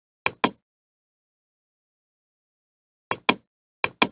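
Computer mouse button clicks: three quick pairs of sharp clicks, one pair just after the start and two pairs close together near the end, with silence between.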